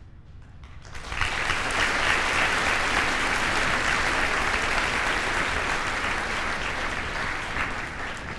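Audience applauding, starting suddenly about a second in and slowly fading.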